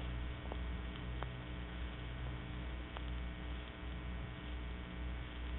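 Steady electrical mains hum with background hiss on an old recording, with a few faint clicks.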